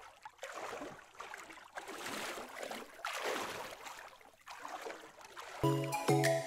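Small waves washing and lapping, swelling and fading about once a second. About five and a half seconds in, electronic music with pulsing chords begins, about two a second.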